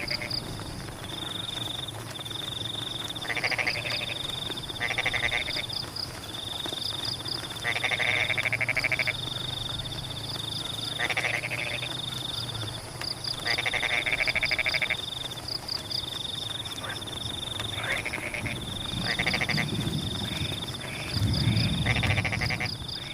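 Chorus of rice-field frogs: rasping, pulsed croaks every one to two seconds over a repeating high trill and quick triple chirps, with a low rumble near the end.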